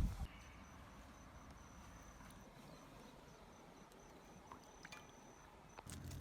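Quiet outdoor ambience with a faint high insect trill that comes and goes, a few small clicks, and a low rumble that starts near the end.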